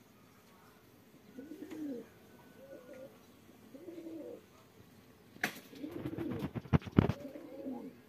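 A dove cooing in repeated low phrases, with a cluster of sharp clicks about two-thirds of the way through.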